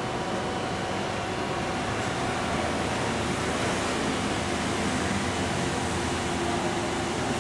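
Alstom Citadis tram standing close by, its air-conditioning and electrical equipment giving a steady whir and hiss with a faint steady hum.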